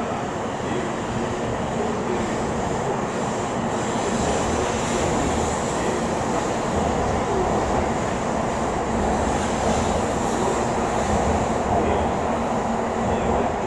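A train running: a steady, loud rushing rumble that swells slightly about four seconds in and holds.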